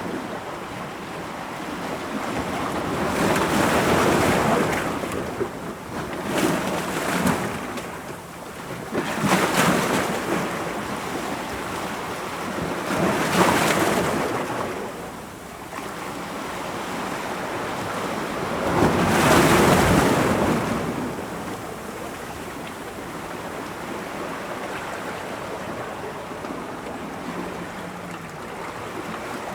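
Ocean waves breaking against rocks: a steady wash of surf with about five louder surges, the biggest a little under two-thirds through.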